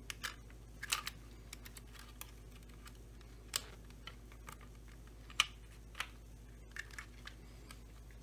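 Light, irregular clicks and taps of small metal parts and pliers against a Stihl 025 chainsaw's plastic housing during hand assembly of the clutch-side brake parts, with the sharpest clicks about three and a half and five and a half seconds in.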